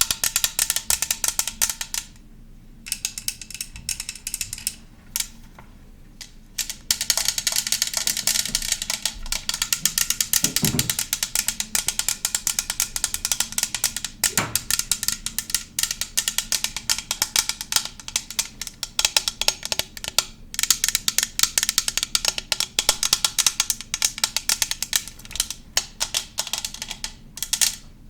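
Fast, close-miked ASMR clicks and taps in a dense, rapid run, with short pauses in the first few seconds and then an unbroken stream.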